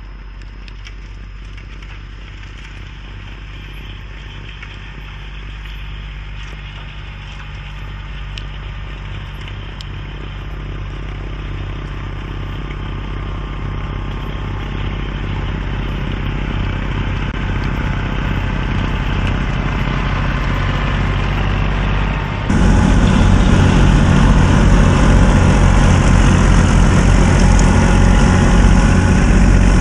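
25 hp Kubota compact tractor's diesel engine running under load, driving a 72-inch three-point-hitch snow blower that is throwing snow; the sound grows steadily louder as it approaches. About two-thirds of the way in, it jumps suddenly much louder and closer.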